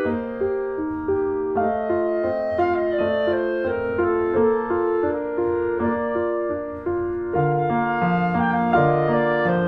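Background music: piano with a woodwind melody, notes moving at an easy pace, the bass line dropping lower near the end.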